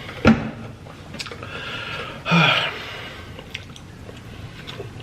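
A person chewing and biting a burger close to the microphone, with wet mouth noises, and two short louder mouth sounds, one near the start and one about two seconds later.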